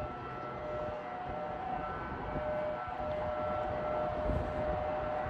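Outdoor warning siren sounding a steady tone during its monthly test, at a lower level while its rotating horn faces away, before it sweeps back around.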